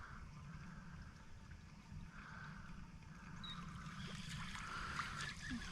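Faint water lapping and trickling over a steady low rumble, with a few small clicks near the end.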